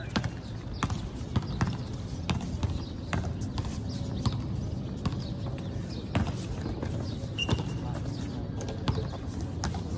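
Basketball bouncing and players' running footsteps on a hard outdoor court: irregular sharp knocks and slaps, several a second, over a steady low rumble.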